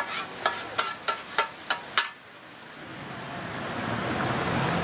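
Metal spatulas clanking against a wide stir-fry pan, seven quick ringing strikes in about two seconds, over light sizzling. After that a steady engine-like hum slowly grows louder.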